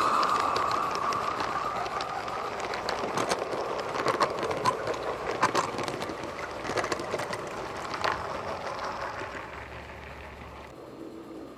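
Miniature garden-railway steam train and its coaches passing close by and running away, the wheels clicking irregularly over the track. The sound is loudest at the start and fades as the train recedes.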